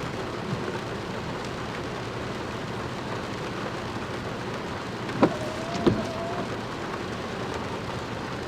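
Steady rain falling during a thunderstorm, with two sharp taps about two-thirds of a second apart a little past the middle, followed by a faint wavering whistle.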